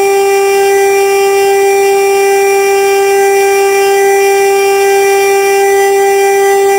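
Fire station siren sounding the alarm: one loud, steady tone with no rise or fall.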